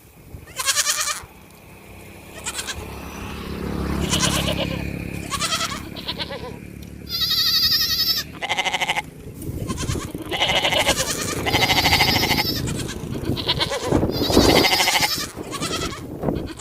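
Goats bleating over and over, a run of quavering calls, some overlapping.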